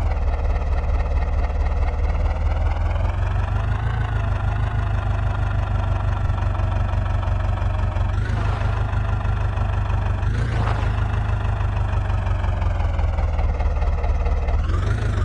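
Heavy diesel engine running steadily with a constant low rumble and a whine above it that drifts gently in pitch, rising slightly about four seconds in. Two short bursts of noise come about eight and ten and a half seconds in.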